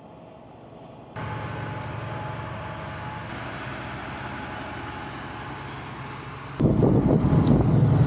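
Fendt 936 Vario tractor's diesel engine running steadily while ploughing, faint at first, then suddenly louder about a second in and much louder again near the end as the tractor passes close by.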